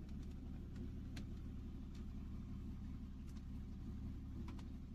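Jaguar XF diesel engine idling steadily with a low, even rumble, running smoothly after repair of a cylinder 1 misfire. A few faint clicks sound over it.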